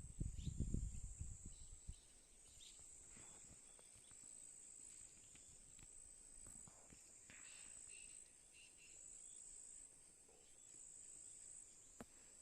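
Faint, steady high-pitched insect drone that pulses in long even stretches, with a low rumble of wind or handling on the microphone in the first two seconds and a few faint short bird notes midway.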